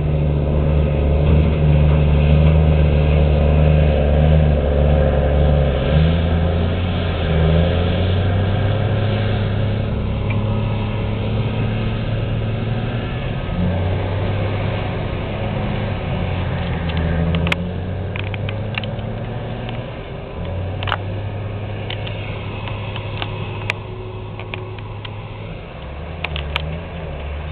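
Komatsu 1250 hydraulic excavator's diesel engine working under load, its note stepping up and down every few seconds as the machine digs and swings. A few sharp knocks come in the second half.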